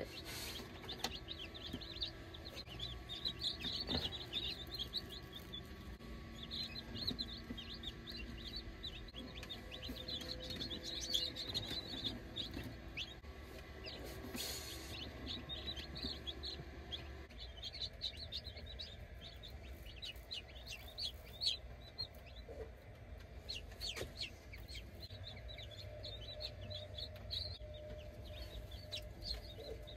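Newly hatched chicks peeping: many short, high cheeps overlapping without a break. A few knocks sound through them.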